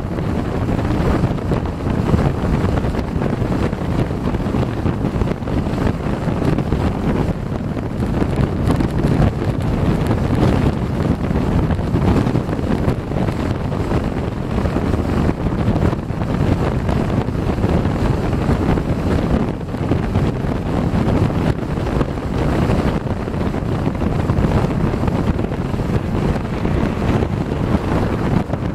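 Wind buffeting the microphone over the steady rumble of a vehicle driving at highway speed.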